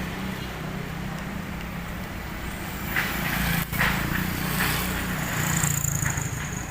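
Street noise with a motor vehicle engine running steadily close by.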